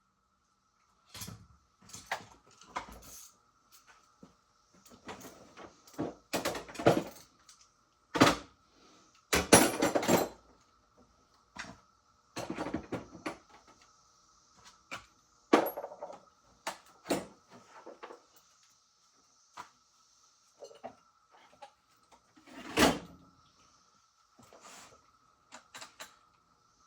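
Irregular knocks, clatter and rustling of things being handled, a few louder knocks among them, over a faint steady high whine.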